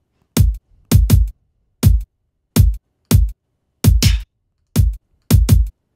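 A sampled kick drum played by the UltraBeat drum machine's step sequencer in a slow repeating pattern, about two hits a second, some in quick pairs. Each hit is a sharp click that drops in pitch into a deep boom; one hit about four seconds in has a brighter, hissier edge.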